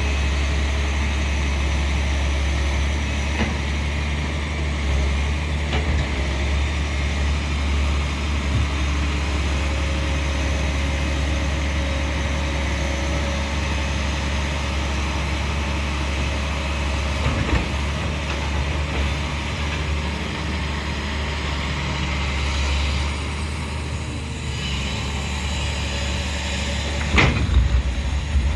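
Doosan 300 excavator's diesel engine running steadily with a heavy low hum. A few knocks come through, with a louder cluster of them near the end.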